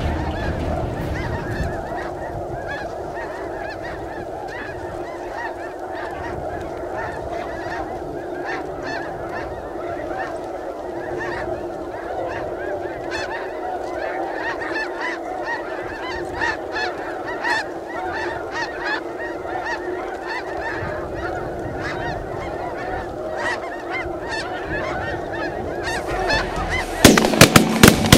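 A large flock of snow geese calling overhead: a dense, continuous din of many overlapping honks. Near the end, loud sharp bangs cut in.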